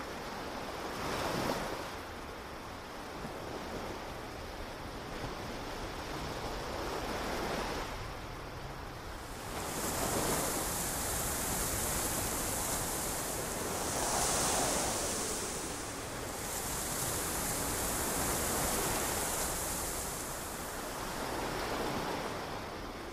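Ocean surf washing onto a beach, the noise of the waves swelling and falling every few seconds. A brighter hiss joins in about ten seconds in.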